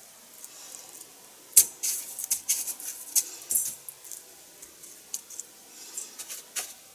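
Hands pressing panko breadcrumbs onto egg-dipped chicken breast pieces in a stainless steel bowl: scattered crisp crackles and clicks, with a louder knock about one and a half seconds in.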